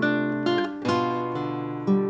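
Acoustic guitar music, with chords plucked or strummed and a new chord sounding about every half second.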